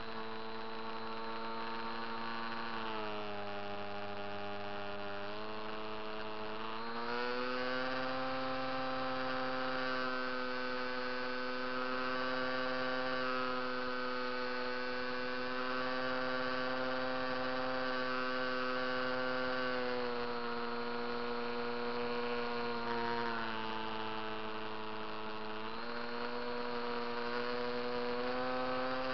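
HobbyKing Coota RC seaplane's electric motor and propeller whining in flight, heard close up from the onboard camera. The pitch steps down about three seconds in, rises again around seven seconds as the motor speeds up, and drops for a few seconds in the last third before climbing back.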